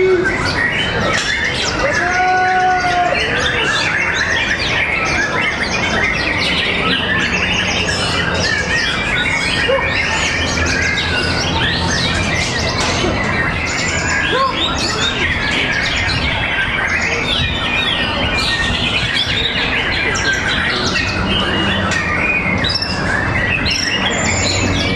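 Many white-rumped shamas (murai batu) singing at once in a songbird contest: a dense chorus of overlapping whistles, trills and chirps at a steady level.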